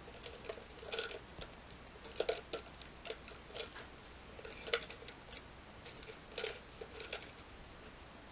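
Light, irregular clicks and taps, about a dozen, as a small liner paintbrush is picked up and handled.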